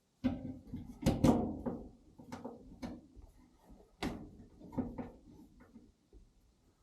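Irregular knocks, clunks and rattles of hard parts being handled, loudest about a second in, with another sharp knock about four seconds in.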